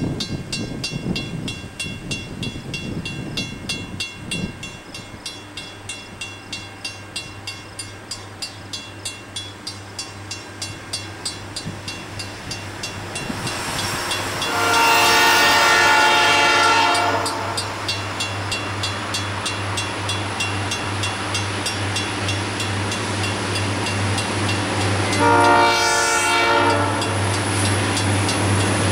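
Railroad crossing bell ringing steadily about twice a second while an approaching diesel freight train's engine drone builds. The train's horn sounds for the crossing: one long blast about halfway through, a shorter one near the end, and a third just starting.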